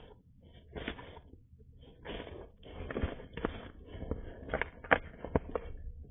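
Opossum rummaging and shifting about in straw bedding close to the microphone: irregular rustling and crackling of straw, with a few sharp knocks and bumps in the second half.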